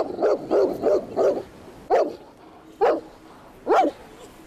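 Bernese Mountain Dog barking in anger: a quick run of about five deep barks in the first second and a half, then single barks roughly once a second.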